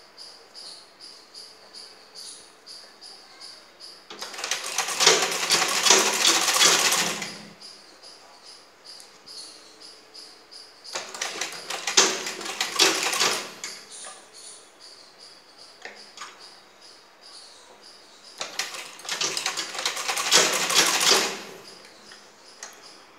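Old black sewing machine stitching in three bursts of about three seconds each, a fast even clatter of the needle. A cricket chirps steadily in between.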